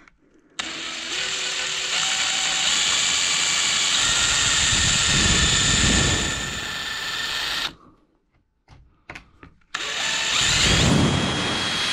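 Cordless drill running in reverse with a screw-extractor bit pressed into a stripped key-fob screw. It runs steadily for about seven seconds, stops, gives a couple of short blips, then starts again near the end. The extractor doesn't bite enough to back the screw out.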